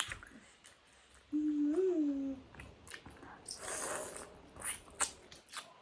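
Close-up eating sounds of someone chewing momo: scattered small mouth clicks and smacks, a short hummed "mmm" that rises and falls about a second and a half in, and a brief hiss near the middle.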